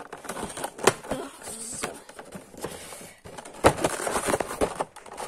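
Handling noises: irregular clicks, taps and light rustling, with a sharp click about a second in and a quick run of clicks near four seconds in.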